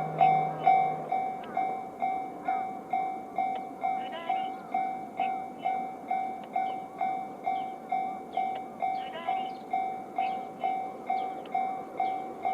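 Japanese railway level-crossing electronic warning bell sounding the JR standard tone. It rings steadily at a little over two strokes a second, the signal that a train is approaching and the barriers are down.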